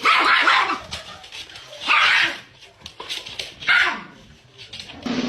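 A dog barking: three loud calls spaced about two seconds apart.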